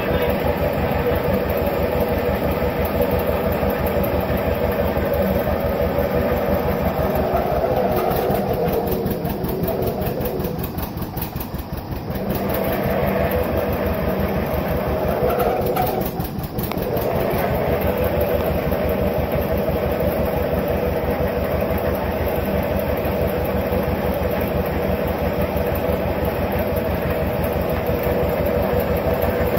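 John Deere 720 two-cylinder diesel tractor engine running with a steady, even putt. It eases off briefly twice in the middle, then settles back to the same beat.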